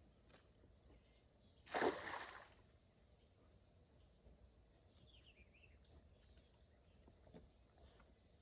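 Faint steady drone of crickets, broken about two seconds in by one short splash of water.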